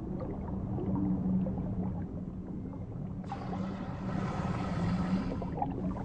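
Underwater ambience: a steady low drone, joined a little past three seconds in by a hiss that cuts off just before the end.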